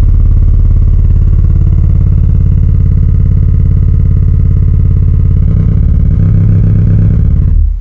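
Loud hum and buzz from a Sugden A21a amplifier's phono stage with a Garrard Zero 100S turntable connected, the volume turned up high: a steady stack of even tones from the mains pitch upward. It grows fuller about five and a half seconds in, then cuts off suddenly near the end. It is a noise fault that persists with the turntable's earth lead connected to the amplifier.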